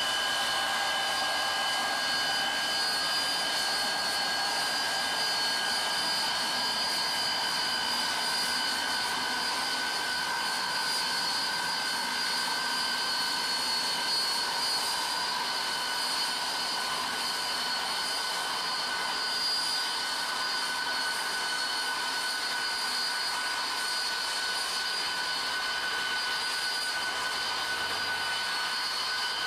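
Railway snow blower running steadily: a constant rushing noise with a high, steady whine over it.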